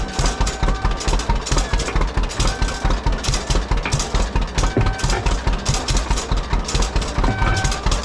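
Two-cylinder engine of an old John Deere tractor running at low speed with an even chugging beat, about five pulses a second.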